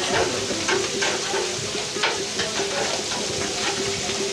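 Hilsa fish pieces and eggplant slices sizzling in oil on a large flat iron griddle, a steady crackling hiss.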